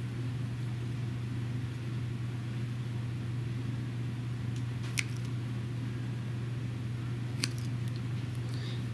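Two short, sharp snips of small precision side cutters trimming excess fused polyurethane off a welded O-band joint, about five and seven and a half seconds in, over a steady low hum.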